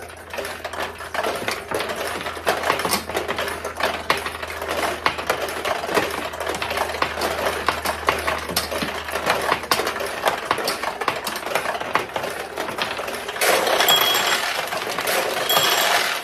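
1973 Nishijin Model B pachinko machine being played: steel balls fired one after another and clattering down through the pins, over a low steady hum that stops about two thirds of the way in. Near the end comes a louder, denser rush of clatter with a high ringing tone as the machine pays out wins.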